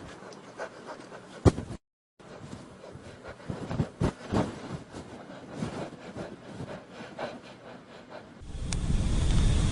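A sharp knock about a second and a half in, then a few duller knocks and thumps around four seconds; near the end a loud low rumbling noise rises.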